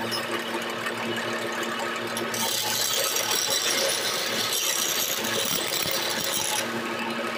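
Wood lathe motor running with a steady hum. From about two seconds in until near the end, a hand chisel cuts into the spinning gamari-wood stair baluster with a loud hissing scrape of shavings, which stops when the tool is lifted away.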